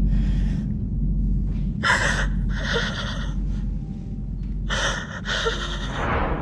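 A woman gasping and breathing hard in distress, about five sharp breathy gasps in a row, over a steady low rumble.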